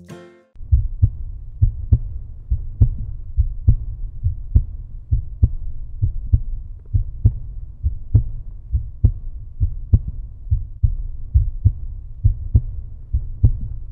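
Outro soundtrack: a deep, pulsing beat like a heartbeat over a low rumble, with roughly one strong beat a second and softer beats between. It starts about half a second in.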